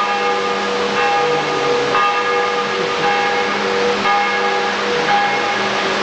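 Church bells ringing in the tower, several bells struck about once a second, their tones ringing on and overlapping.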